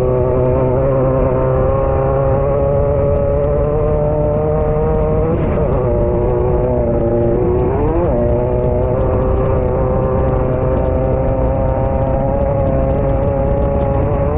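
Engine of a Class 9 off-road race car heard from inside the car, holding a steady high note at racing speed. The pitch drops and climbs back twice, about five and eight seconds in, over a constant heavy rumble and rattle from the chassis and terrain.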